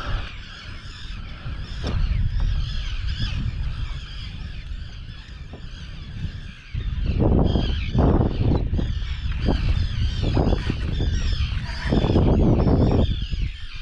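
A flock of birds calling over the water, many short overlapping honking calls throughout. A low rushing noise swells twice, around the middle and near the end, and is the loudest sound.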